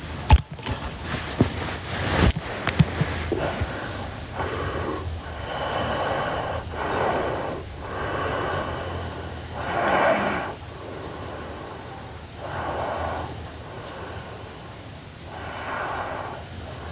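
A sleeping girl snoring, one noisy breath about every one to two seconds. A few sharp clicks or knocks come near the start.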